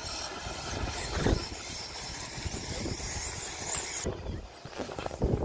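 Radio-controlled 4WD off-road buggies racing on a grass and dirt track: a steady high motor whine and hiss with irregular low knocks and thumps, the loudest about a second in.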